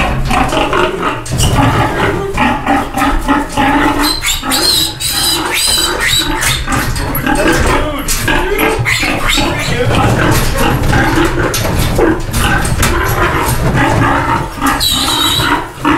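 Piglets squealing as they are caught and held up, mixed with the sow's continual loud grunting in distress over her piglets. The squeals peak highest about five seconds in and again near the end.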